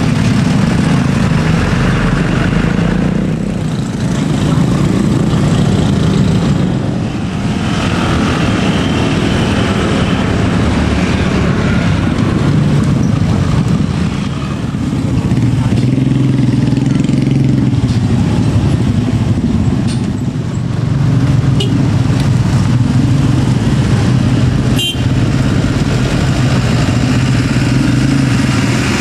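Light diesel trucks and a stream of motorcycles running past at close range: a continuous mix of engine noise, with a few short sharp sounds between about twenty and twenty-five seconds in.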